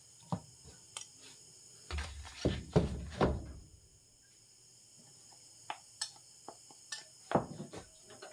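Kitchen things being handled on a counter: a few heavier knocks about two to three seconds in, then scattered light taps and clinks of a glass and spoon.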